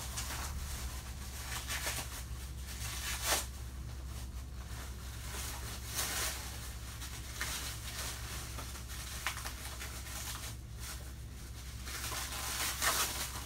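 Packing paper being torn and crumpled off a wrapped item, in irregular rustling bursts, over a steady low hum.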